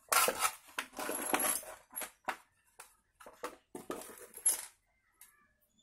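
Small steel valve-train parts clinking and rattling as they are handled at a motorcycle cylinder head during valve spring fitting. A clustered jumble of metallic clinks comes first, then a few single clicks about half a second apart, tapering off near the end.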